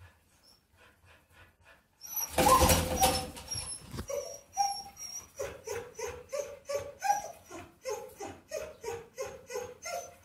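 A loud rustling clatter, then a guinea pig wheeking: a long run of short, repeated squeaking calls, about three a second, starting about four seconds in.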